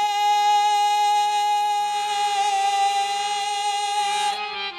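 A male rasiya folk singer holding one long high note on 're' into the stage microphone for about four seconds, with a slight wobble midway, breaking off near the end.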